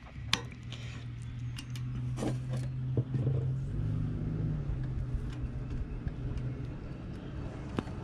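An engine runs steadily in the background, growing louder in the first seconds and shifting in pitch about halfway through. Over it come a few sharp clicks: side snips cutting a zip tie just after the start, then hands working a plastic cable connector.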